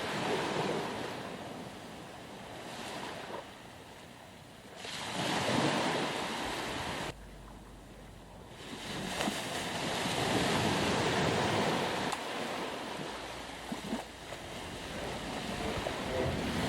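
Sea waves breaking on a beach, the surf swelling and falling in a noisy wash, loudest about five seconds in and again from about nine seconds on, with a sudden drop in between.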